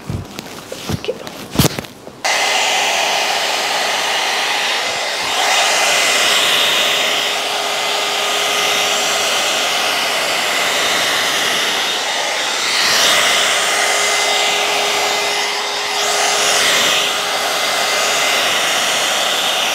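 A few clicks, then about two seconds in an Alan Truman hot-air blow brush switches on. It runs on its warm setting as a steady rush of air with a faint whine, swelling and easing a few times.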